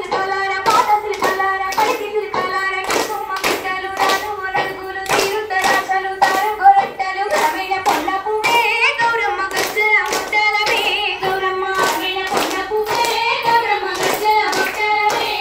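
Rhythmic hand clapping by a group of dancers, about two claps a second and steady throughout, with a song sung over it.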